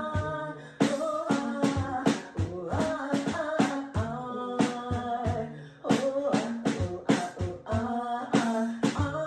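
Music: a song with a steady drum beat and a woman's sung vocal line over it.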